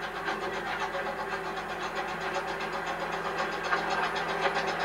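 Narrow-gauge steam locomotive chuffing as it approaches, a quick even beat of exhaust that grows louder.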